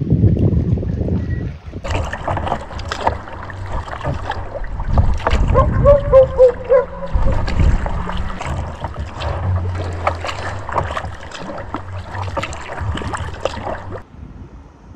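Water splashing and sloshing around a kayak under paddle strokes, with low wind rumble on the microphone. A short wavering squeak comes near the middle, and the sound stops abruptly near the end.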